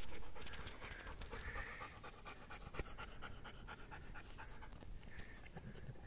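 Six-month-old Rottweiler puppy panting steadily with his mouth open, out of breath after short runs chasing a flirt pole lure.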